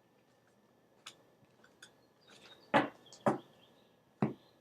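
Tarot cards being handled and set down on a table: a few light clicks, then three sharp taps in the second half.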